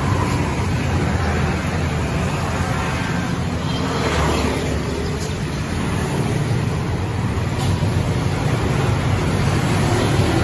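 Steady road-traffic rumble, with one vehicle passing about four seconds in.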